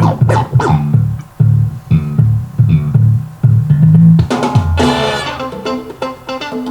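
A recorded rock-funk song playing, with a prominent bass guitar line over drums and guitar. A brighter, fuller layer swells in briefly about four seconds in.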